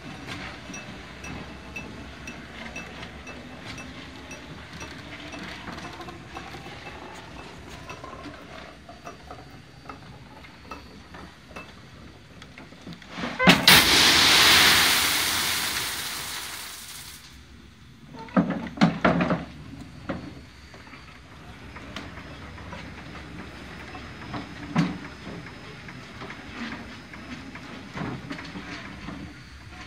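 Winch and pulley gear of a homemade cable transport track whirring, with light regular ticks at first and a faint rising whine. About halfway through, water hisses and splashes loudly for about three seconds and fades, followed by a few knocks.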